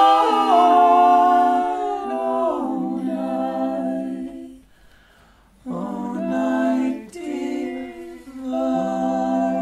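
A small mixed group of voices sings wordless close-harmony chords a cappella, holding each chord and then stepping to the next. The singing breaks off for about a second midway, then resumes.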